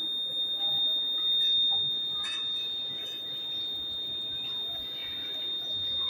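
Buzzer of a homemade gas and smoke detector sounding one steady high-pitched tone without a break, set off by incense smoke held to its sensor.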